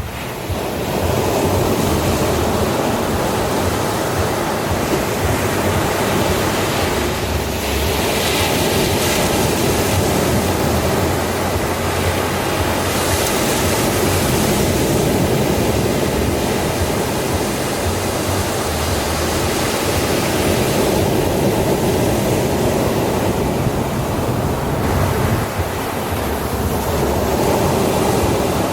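Ocean surf breaking and washing onto a sandy shore: a steady rush, with the hiss of breaking waves swelling and easing several times.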